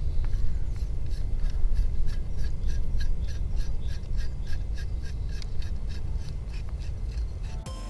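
Steady low rumble of wind on the microphone, with an even run of faint light ticks, about five a second, that die away near the end.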